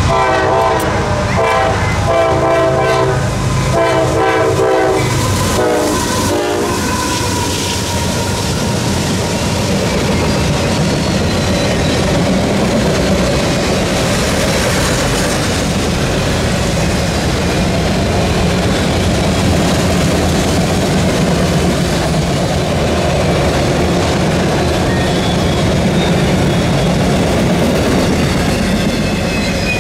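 A diesel freight locomotive's air horn sounds a chord in several blasts over the first six seconds as the train approaches. Then the long string of autorack cars rolls past, the wheels rumbling and clicking steadily over the rails.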